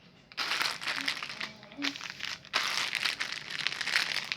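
Plastic packaging crinkling and crumpling as it is handled, in two long stretches of rustling, the first starting about half a second in.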